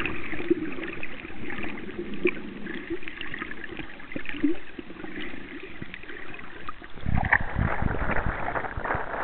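Muffled underwater noise: low gurgling with scattered faint crackles. About seven seconds in, the microphone comes up out of the water, and a louder, fuller wash of water sloshing and wind gusting on the microphone takes over.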